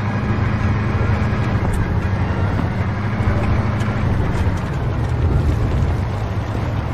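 Humvee's diesel engine running with a steady low rumble.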